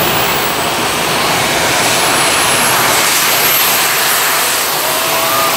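Jet suit's small turbine engines running at full thrust as the pilot lifts off the ground: a loud, steady jet roar with a high whine on top.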